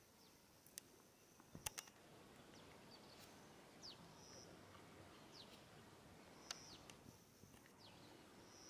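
Near silence: faint outdoor background with scattered short, falling bird chirps and a quick pair of sharp clicks about a second and a half in.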